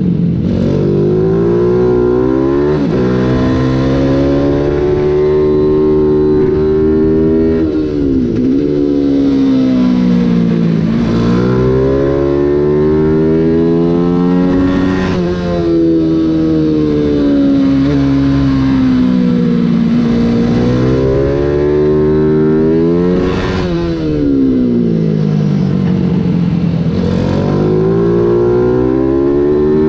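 Mini GP 140 race bike's engine at race pace, heard from on board: the pitch climbs in steps through the upshifts, then drops sharply as the throttle is shut for braking into corners, over and over.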